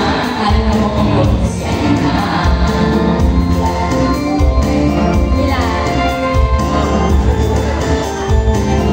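Amplified women's singing into handheld microphones over a backing track with a steady bass beat.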